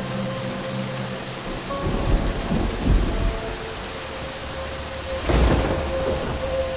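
Heavy rain falling steadily, with low rumbles of thunder about two to three seconds in and a louder roll of thunder about five and a half seconds in.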